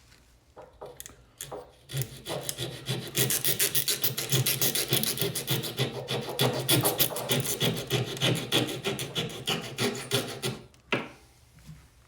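Rapid, rhythmic back-and-forth strokes of a hand tool on wood, several a second, typical of hand sawing or rasping a board. A few separate strokes come first, then a steady run starts about two seconds in and stops shortly before the end.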